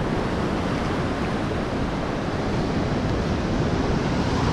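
Steady rush of ocean surf breaking and washing up the beach, with wind noise on the microphone.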